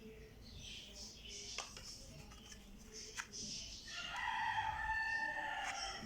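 Light rustling and crinkling of plastic toy packaging with a few sharp clicks, then, about four seconds in, a louder held pitched call or tone lasting about two seconds.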